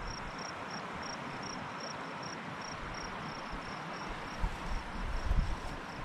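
Creek water running over rocks with a steady hiss, and an insect chirping at an even pace of about four short high chirps a second; a few low thumps and rustles near the end.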